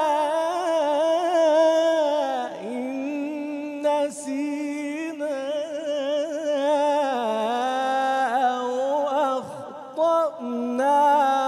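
A man's voice reciting the Quran in a slow, melodic chanted style, drawing the words "tu'akhidhna" and "in nasina" out into long held notes with ornamented rises and falls in pitch. The voice breaks off briefly for a breath about ten seconds in.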